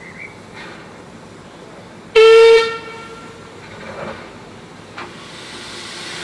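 Steam locomotive whistle, one short blast of about half a second after the guard's right-away, followed near the end by the hiss of the LSWR O2 tank engine's cylinder drain cocks as it gets ready to pull away.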